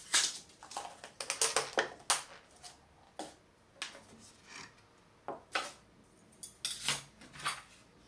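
Tabletop handling noises: a quick run of light clicks, taps and knocks in the first two seconds, then single knocks now and then, as a small glass bottle, wooden plates and metal tweezers are moved about and cleared away.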